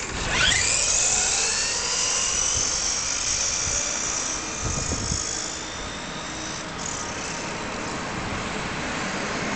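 RC off-road buggy's motor whining at a high pitch as the buggy races across asphalt; the pitch drops steeply in the first second, then holds as several high tones that drift slowly lower and fade a little.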